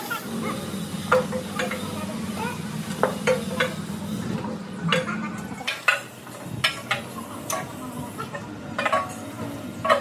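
A heavy steel road roller drum being rolled and shoved by hand over gritty ground: a low rumble through the first half, stopping a little past halfway, with about a dozen sharp clinks and knocks scattered throughout.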